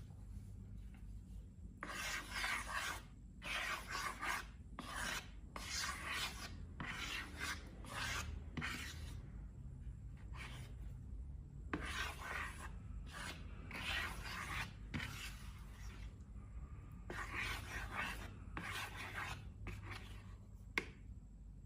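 Slime being rubbed and worked by hand in a series of rasping strokes, roughly one a second in runs with short pauses, over a steady low hum.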